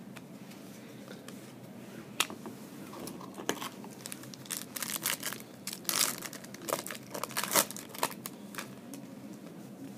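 Foil trading-card pack wrapper crinkling and tearing as it is ripped open by hand: an irregular run of sharp crackles, busiest and loudest a few seconds in.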